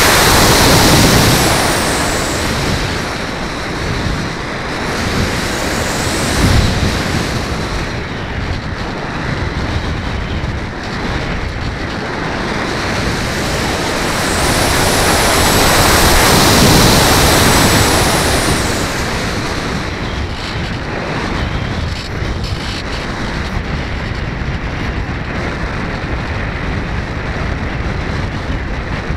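Wind rushing over the onboard camera of a foam RC plane in flight. The high whine of the plane's electric motor rises and falls twice, once near the start and again about halfway through, when the sound is loudest.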